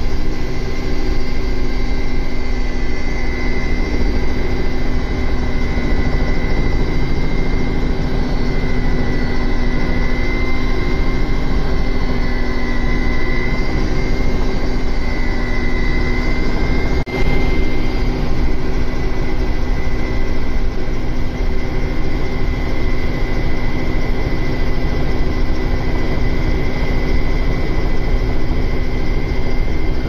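Helicopter engine and rotor running steadily, heard from inside the cabin: a dense low rumble with a constant high whine on top, and one momentary drop-out just past the middle.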